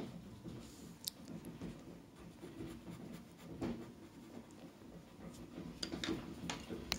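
Colored pencil scratching across paper as lines are drawn, faint and uneven, with a few short clicks along the way.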